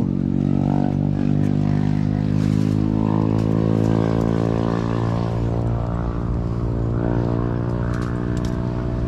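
An engine running steadily at a nearly even pitch, with a few faint clicks over it.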